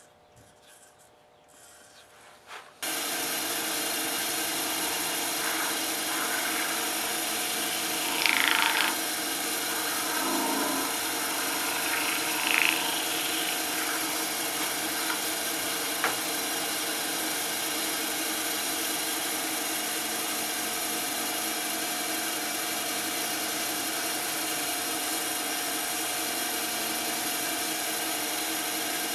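Delta wood lathe starting up a few seconds in and then running steadily with a motor hum. Twice a little later there is a brief louder rubbing as something is pressed against the spinning cherry-wood apple.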